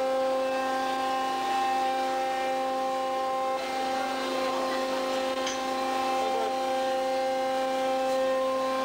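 Fishing vessel machinery running with a steady, unchanging pitched hum.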